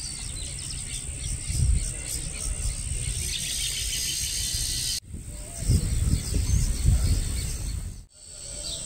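Outdoor riverside ambience: small birds chirping and insects buzzing over an irregular low rumble, like wind on the microphone, which is loudest a little past the middle. The sound breaks off sharply twice, about five and eight seconds in.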